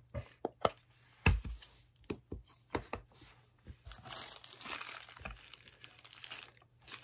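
A few light knocks and clicks from handling a small digital pocket scale on the desk, the loudest a little past a second in. From about four seconds in, a plastic bag crinkles as the bagged wristwatch is set on the scale.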